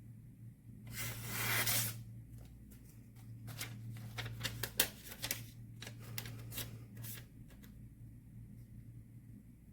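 Paper rustling and handling: a papery swish about a second in, then a string of light clicks and taps, with the last few further apart.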